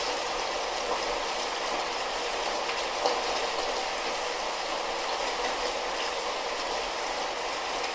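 Light rain falling steadily, an even hiss of drops with an occasional single louder drop ticking, once about three seconds in.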